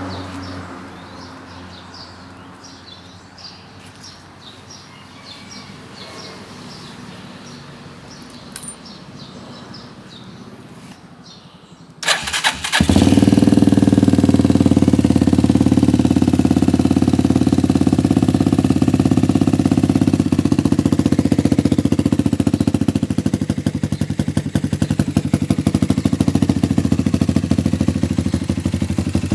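For about twelve seconds only faint background with small high chirps, then a DTM 150 motorcycle engine is started and catches at once. It runs loudly and steadily with a fast, even firing pulse, the revs wavering slightly later on.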